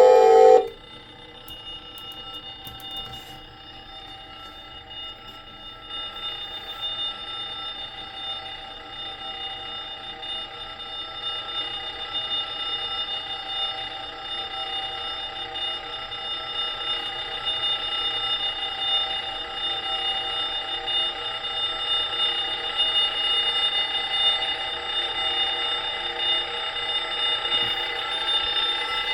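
Timex T232 alarm clock's electronic alarm sounding: a steady high-pitched tone that grows gradually louder. Music cuts off about half a second in, just before it.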